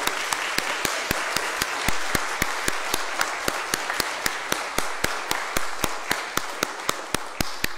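Audience applauding, with one clapper close by standing out in sharp, even claps about four to five a second. The applause begins to taper off near the end.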